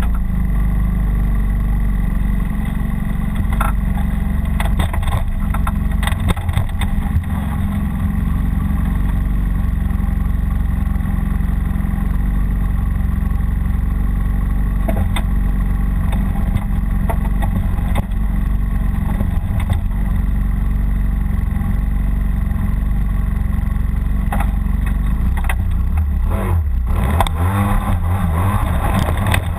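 Snowmobile engine idling steadily, heard up close from the machine itself, with a few short knocks near the end.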